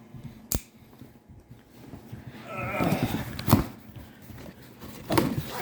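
A few sharp clicks and knocks from items and packaging being handled while a box is unpacked, with a faint short voice around the middle.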